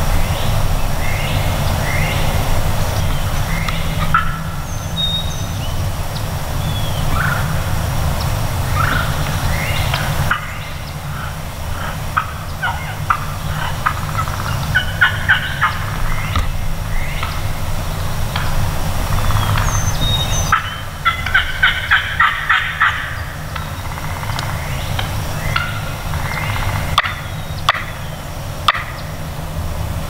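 Turkey calling: rapid runs of sharp notes come twice, about midway and again a few seconds later, with a few small bird chirps over a steady low rumble.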